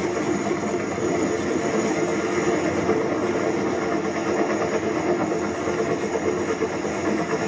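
Steady drone of a helicopter's engine and rotor blades, recorded aboard the helicopter.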